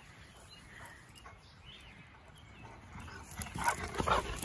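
A large dog moving about on grass close by: quiet at first, then a cluster of short sounds near the end as it comes right up to the microphone.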